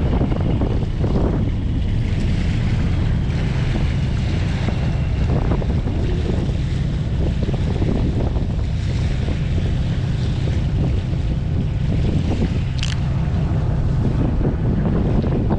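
A fishing boat's engine running with a steady low rumble, under wind buffeting the microphone and water washing against the hull.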